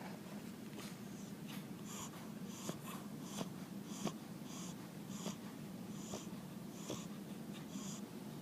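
A sleeping pet's breathing between snores: short, faint wheezy hisses every half second to a second, over a steady low hum.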